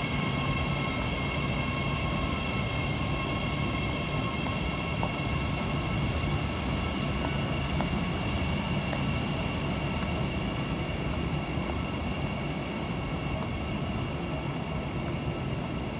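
Electric passenger train running steadily: a constant low rumble with several steady high-pitched tones over it.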